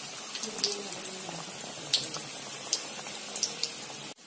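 Breaded chicken cutlets deep-frying in hot oil: a steady bubbling sizzle with scattered crackling pops. The sound drops out briefly near the end.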